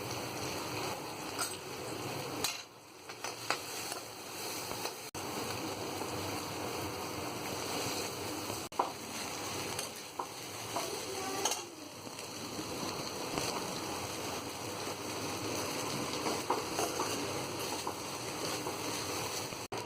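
Leftover rice sizzling as it fries in a pan, stirred with a spatula, with scattered clicks and scrapes of the utensil against the pan.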